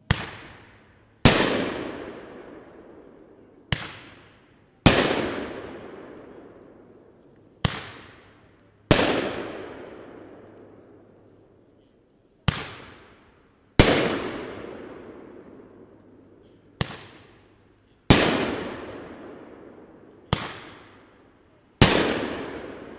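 Epic Fireworks King KaBoom 500-gram cake firing single shots at a slow pace, six times: each shot is a sharp launch report followed about a second later by a louder aerial burst with a long fading tail.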